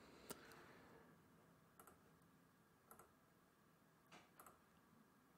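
Near silence with a handful of faint, scattered clicks from a computer mouse and keyboard, the loudest near the start.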